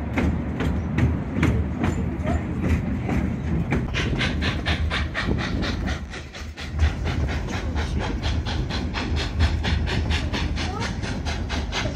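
Narrow-gauge steam train running, heard from a passenger car: a steady low rumble under an even, fast rhythm of sharp beats, about five a second, which grows crisper and louder about a third of the way in.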